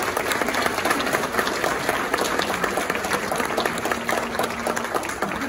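Audience and band applauding, many hands clapping steadily.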